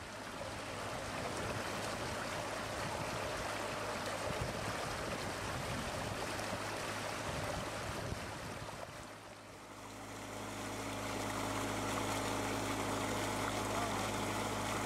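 Pumped water gushing out of a pipe into a concrete tank. Past the middle a steady engine hum from the pump joins the rush of water.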